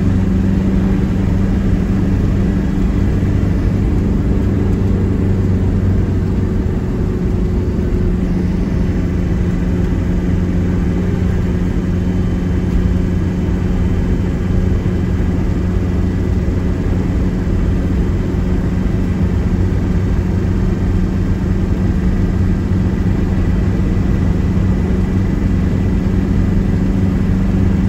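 Car driving at steady speed, heard from inside the cabin: a steady, even low drone of engine and road noise.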